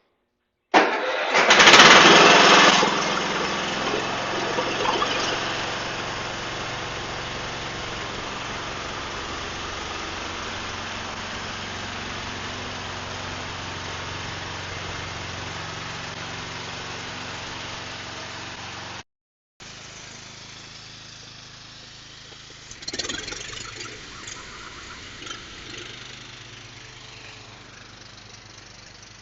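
Cub Cadet LT1045 lawn tractor engine starting with a sudden loud burst about a second in, then running steadily. After a brief break in the sound about two-thirds of the way through, it runs on more quietly with a few louder bursts.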